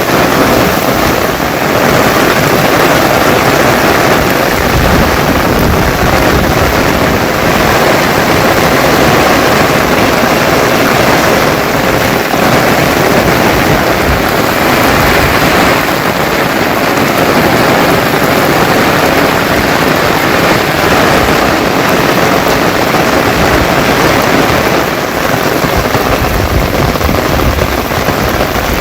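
Heavy monsoon rain falling in a steady, dense, loud hiss with no letup.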